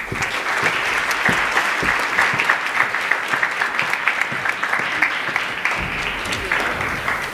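Audience applauding, a dense patter of many hands clapping that starts suddenly and eases off a little near the end.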